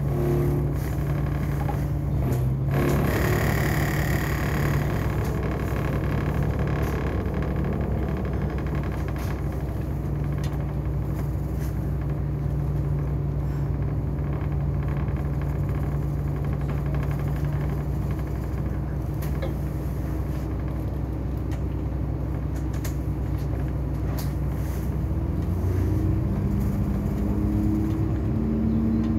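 Double-decker bus's diesel engine heard from the upper deck, running steadily under road noise from tyres on a wet road, with a brief hiss a few seconds in. Near the end the engine note rises as the bus accelerates.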